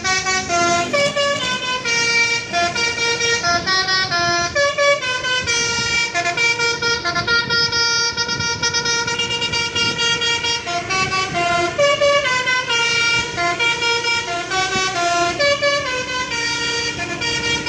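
A bus's basuri telolet musical air horn playing a loud, fast melody, its notes stepping up and down several times a second in rising and falling runs without a break.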